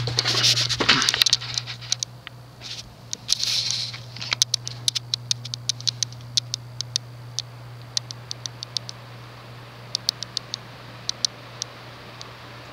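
Casablanca Wailea ceiling fan's motor humming steadily as it is switched into reverse with its pull chain. There is a rustle in the first second or so, then scattered light ticks through the rest.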